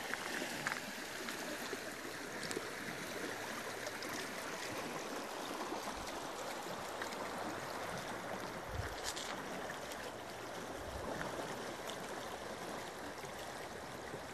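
River water rushing steadily through an open channel between sheets of thick shelf ice. A few soft low thumps come in around the middle.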